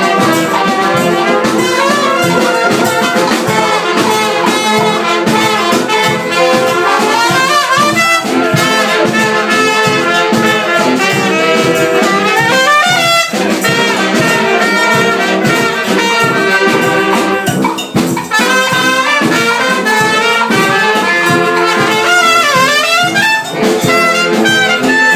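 Live brass band playing a lively tune: trumpet, saxophones, sousaphone and a marching bass drum, loud and continuous, with a rising run of notes about halfway through.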